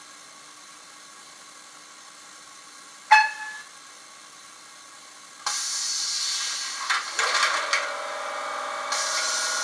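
Fleischmann N-gauge ETA 515 battery railcar model on the track: a short pitched tone about three seconds in, then a sudden hiss about halfway through, followed by a steady running hum with several pitches as it runs.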